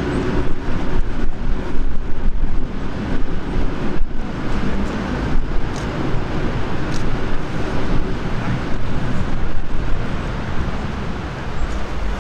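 Steam train passing close below: a loud, rumbling run of wheels on rail and the locomotive's exhaust from the class 58 (Prussian G 12) steam engine, easing slightly near the end.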